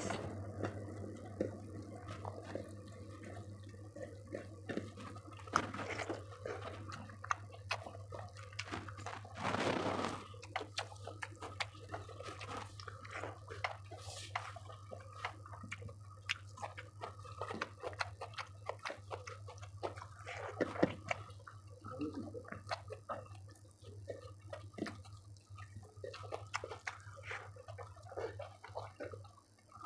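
Close-up wet eating sounds of rice with chicken curry gravy: chewing, small smacks and clicks at irregular intervals, with a steady low hum underneath.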